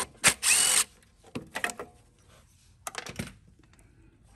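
Cordless drill-driver with a 3/8 in socket running briefly about half a second in, backing out a carburetor mounting bolt. This is followed by small metallic clicks and rattles, twice, as the loose bolts and carburetor are handled.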